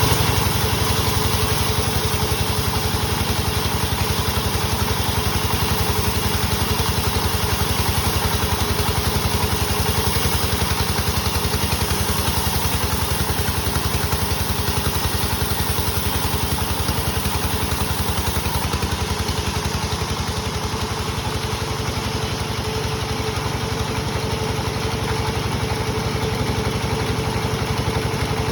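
Engine-driven sawmill saw running steadily, with a pulsing low drone and a steady mid tone; the high hiss drops away about two-thirds of the way through.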